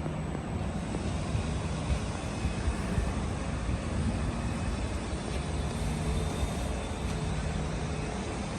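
Royal Enfield Interceptor 650's 648 cc parallel-twin engine running steadily through its exhaust, with no big revs.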